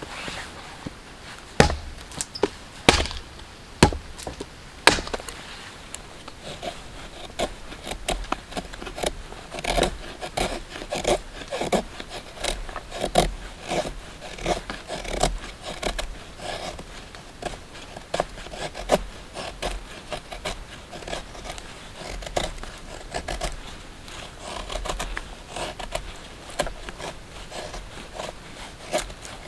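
A hatchet chops split kindling, four sharp blows in the first five seconds. Then a knife scrapes repeatedly along a split stick, strokes about a second apart, carving a feather stick of curled shavings for fire lighting.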